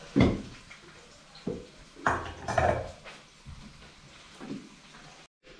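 A few scattered dull knocks and clatters, the loudest right at the start and a cluster about two seconds in, with low hiss between them.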